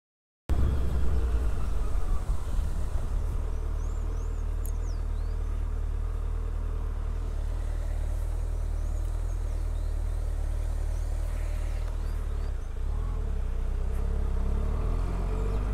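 Suzuki Hayabusa's inline-four engine running at a steady cruise while riding a dirt road, under a steady low rumble. It starts suddenly about half a second in.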